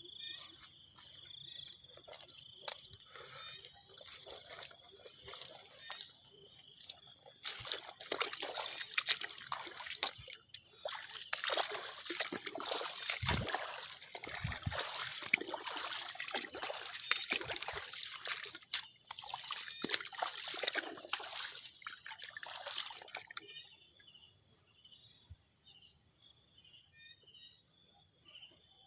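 Water sloshing and splashing in irregular bursts, busiest through the middle and stopping about 23 seconds in. Then only a steady high insect chirring is left.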